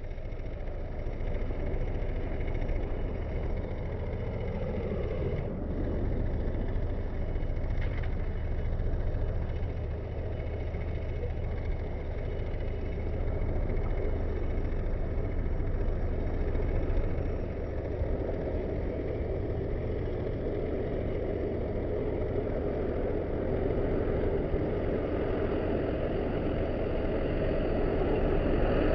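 Tractor engine running steadily while pulling a disc harrow, with a constant low drone.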